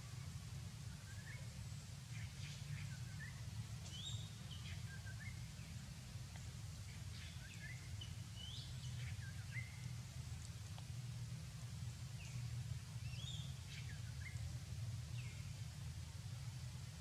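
Birds chirping here and there, short rising and falling notes every second or two, over a steady low background rumble.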